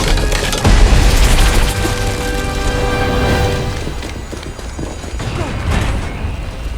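Dramatic film score with a heavy boom under it not long after the start, and rapid clattering hits mixed in before it eases off.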